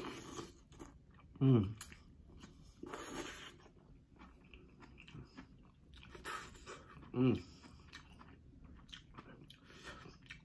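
Close-up chewing and wet mouth sounds of someone eating green-lipped mussels in butter sauce, with two short vocal sounds that fall in pitch, about a second and a half in and again about seven seconds in.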